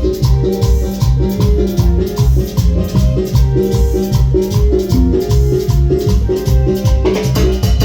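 Live band playing an instrumental passage of Latin dance music with a steady beat; the music gets fuller about seven seconds in.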